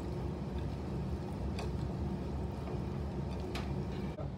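A steady low rumble, with a couple of light clicks from hands rubbing spice-coated raw beef chunks together in a bowl.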